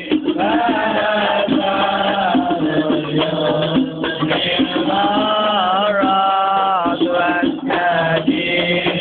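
A group of men chanting a devotional Islamic song together in long, held, gliding lines, over a steady beat of hand drums with a rattling percussion.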